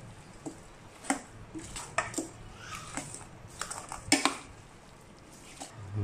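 Metal serving spoon stirring and tossing a wet, leafy salad with glass noodles in a stainless steel mixing bowl. The spoon clinks and scrapes against the bowl at irregular moments, the loudest clink a little after four seconds in.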